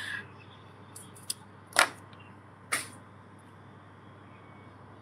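Two short swishes of a plastic comb drawn through long straight hair, about a second apart, over faint room hiss.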